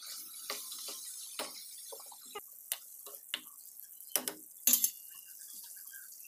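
Tomato masala sizzling and bubbling in oil in a wok while a spatula stirs it, scraping and tapping against the pan in a string of short clicks and knocks, with two louder knocks about two-thirds of the way through.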